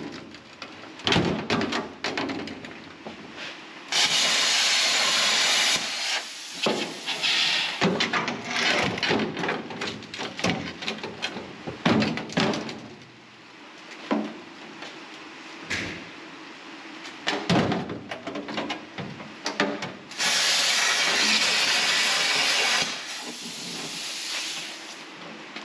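Plasma cutter cutting out a rusted steel car floor pan: two bursts of loud steady hiss, one about 2 seconds long a few seconds in and one about 2.5 seconds long near the end, with scattered knocks and clatter between them.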